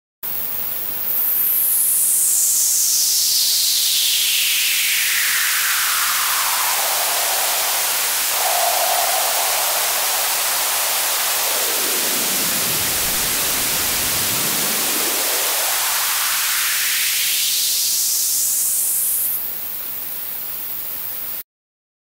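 White noise from FL Studio's 3xOsc synth run through the Fruity Free Filter set to high-pass, with the cutoff swept by hand: a hiss that starts thin, grows steadily fuller and deeper, then thins back out. A resonant whistle traces the cutoff as it slides down over about thirteen seconds and back up over about six, and the noise cuts off suddenly near the end.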